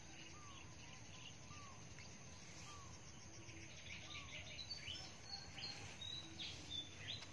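Faint birds calling: one bird repeats a short, arched call about once every second and a quarter, and higher, quick chirps join in the second half, over a faint steady background hiss.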